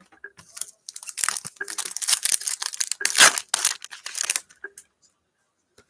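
Crinkling and rustling of a foil trading-card pack wrapper being handled, a dense run of crackles from about a second in until past four seconds, with a few scattered small ticks around it.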